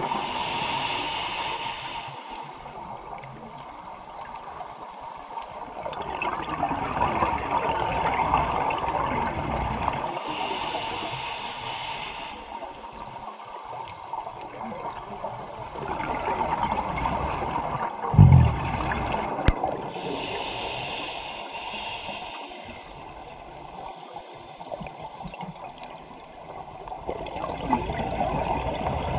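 Scuba diver breathing through a regulator underwater: a hissing inhale of about two seconds roughly every ten seconds, each followed by a long rush of exhaled bubbles. A short low thump comes about two-thirds of the way through.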